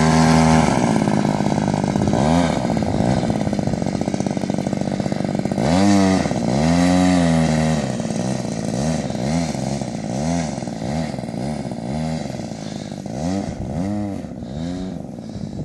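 Engine of a radio-controlled model PZL-104 Wilga running as it taxis on grass. The throttle is blipped over and over, so the pitch rises and falls many times, with a longer burst of power about six seconds in.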